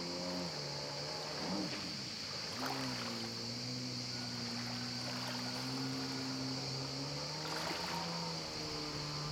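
Two-stroke engine of a Yamaha SuperJet stand-up jet ski heard from a distance, its pitch rising and falling as the rider turns and spins, with brief splashes of spray, over a steady high hiss.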